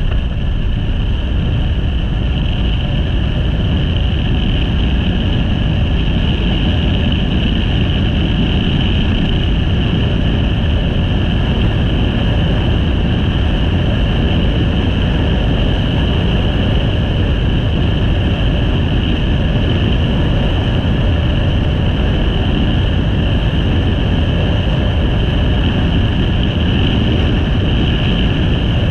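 Motorcycle cruising steadily at road speed, heard from a handlebar-mounted camera: engine and tyre noise under heavy wind rush on the microphone, with a steady high whine over it.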